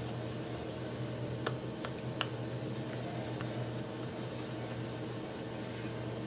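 Steady low background hum, like a running appliance, with a few faint light clicks between about one and a half and three and a half seconds in.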